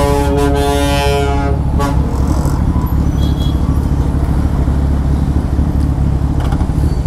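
A vehicle horn sounds one steady-pitched blast of about a second and a half, then a short second toot, over a steady low rumble of engines and road traffic.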